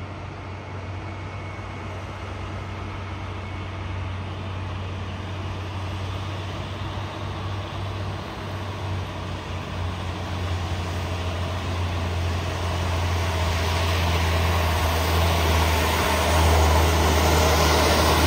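Diesel engines of laden Mitsubishi cargo trucks running steadily as they climb the hill toward the listener. The engine hum grows louder over the last several seconds and is loudest near the end as the trucks draw close.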